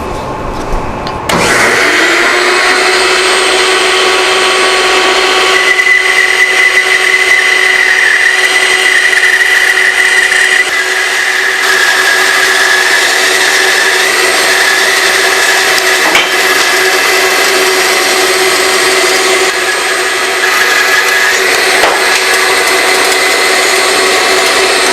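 Bandsaw cutting the taper on a wooden table leg in a freehand cut: the blade runs steadily through the wood with a constant whine over a dense hiss, coming in about a second in.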